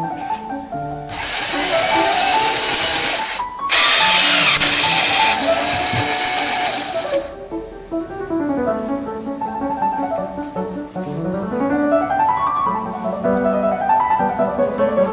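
Music with a shifting melody throughout. From about a second in, a loud steady rushing noise, like a small motor, runs over it for about six seconds, breaking off briefly near the middle of that stretch.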